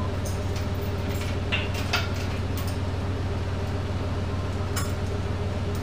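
A few light metal clinks and taps as steel parts on a plow frame are handled, over a steady low hum.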